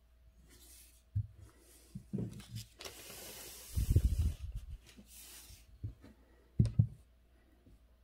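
Hands shifting a sheet of calligraphy paper on a desk: a short papery hiss and several dull knocks, the loudest around halfway through.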